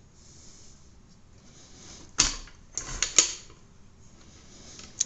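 Metal parts of a Makita 5007MG circular saw clicking and clacking as its bevel adjustment is handled: a quick cluster of sharp clicks about two to three seconds in, and one more click near the end.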